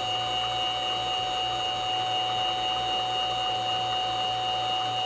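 X2 mini-mill spindle running at very low speed, a steady whine with several held tones over a low hum. The end mill is being fed down to touch off on the top of the workpiece and has not yet started cutting.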